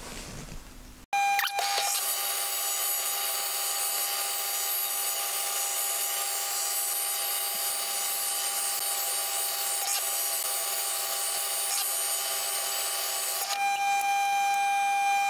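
Metal lathe and its rotary phase converter running while the lathe cuts a steel hub, played back at eight times speed. It starts abruptly about a second in as a steady high-pitched whine with several steady tones over a cutting hiss. Near the end the hiss drops away and a single tone stands out as the cut finishes.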